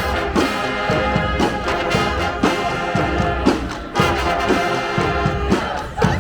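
Street brass band playing, trombones and trumpets together over a steady beat.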